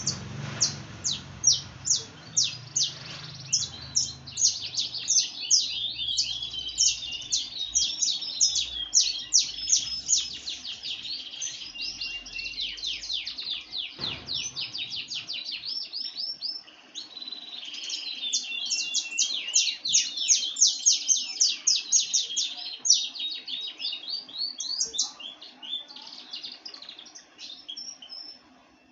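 Songbirds singing long, fast runs of high chirps and quick sweeping notes, several a second, in two long bouts with a short break about halfway through, fading near the end.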